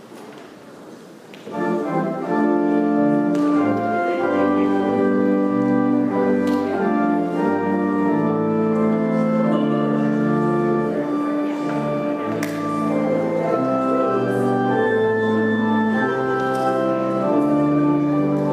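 Church organ playing sustained chords over deep pedal bass notes. It comes in about a second and a half in, over a quiet murmur of the room.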